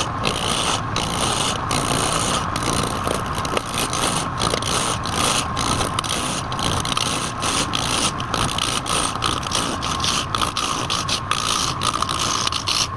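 Wood lathe running while a turning tool cuts the spinning wood: a steady motor whine under a loud scraping hiss that drops out briefly many times as the tool bites and eases off.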